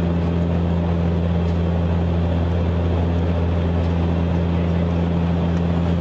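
Aircraft cabin noise in flight: a steady, unchanging drone with a low hum under an even rush of air.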